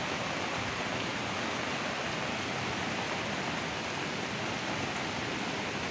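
Steady rush of water: heavy rain falling and muddy floodwater running down a road, an even hiss with no breaks.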